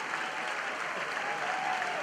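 Audience applauding, a steady, dense clapping from many hands.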